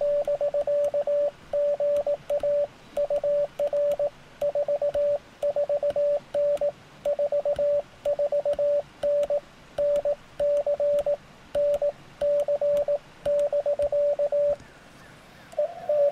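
Morse code sent by hand on an iambic paddle, heard as the Recent RS-978 transceiver's sidetone: a single clear tone keyed in dots and dashes. It spells out "BK GA UR 44N 44N NC NC BK", a 449 signal report from North Carolina. About a second after it stops, the other station's reply comes in as a slightly higher, noisier Morse tone.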